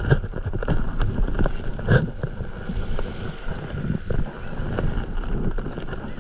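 Small waves washing around a stand-up paddleboard in shallow water, with wind buffeting the microphone. There are a couple of brief knocks, one near the start and one about two seconds later.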